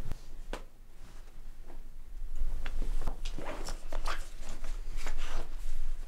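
Clothes rustling and shuffling as hands rummage through a packed suitcase: a few soft rustles at first, then quick, busy scratchy rustling from about two seconds in.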